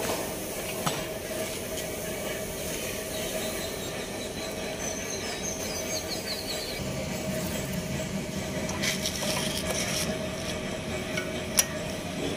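Metal rubbing and scraping as a power weeder's lugged tyre wheel is worked onto its axle shaft. A steady hum runs underneath, and a single sharp click comes near the end.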